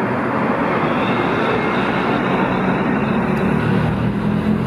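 Diesel engine of a 1961 Leyland Tiger Cub bus running as the bus drives off along the street, over steady road noise; a deeper engine hum grows near the end.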